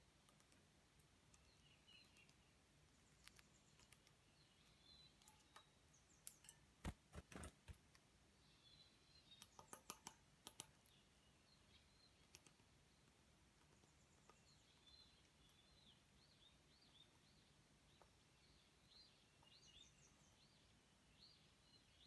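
Varied tit hammering a sunflower seed with its bill as it holds the seed on a metal railing: two runs of sharp taps, one about six to eight seconds in and one around ten seconds in. Faint, short, high bird chirps come and go, more of them in the second half.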